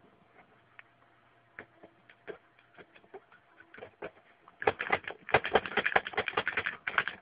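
Manual upward-firing pick gun snapping as its trigger is worked against a lock's pin tumblers, held under light tension. A few scattered clicks come first, then about four and a half seconds in a fast, louder run of snaps as the gun is fired over and over.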